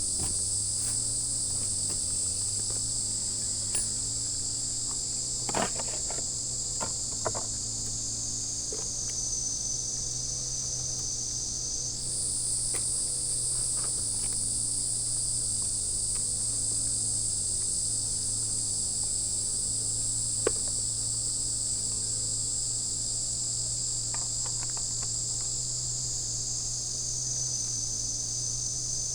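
Steady, shrill insect chorus with a low steady hum underneath, broken by a few light knocks or clicks.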